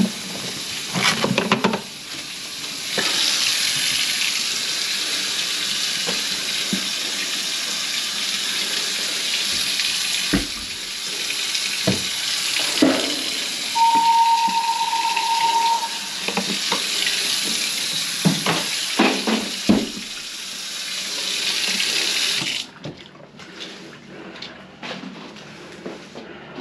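Kitchen faucet running a steady stream of water into the sink, then shut off abruptly near the end, with a few knocks and clatter along the way. A steady high tone sounds for about two seconds midway.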